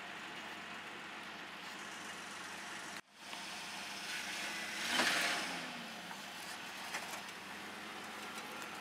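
Pickup truck engine running with the boat trailer hitched, a steady hum. The sound cuts out briefly about three seconds in, then rises and falls in a short swell about five seconds in.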